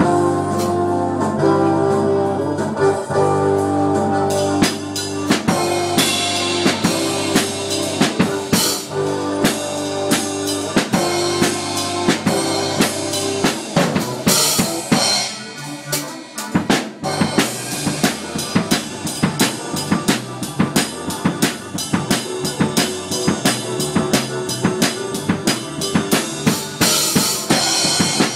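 Acoustic drum kit played hard, with bass drum, snare and cymbal hits, along with recorded guitar music. Held guitar chords sound under the drums in the first half; about halfway they mostly drop away and the drumming grows denser.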